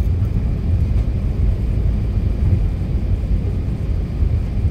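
Steady low rumble of engines and airflow inside the cabin of an Airbus A380-800 on final approach.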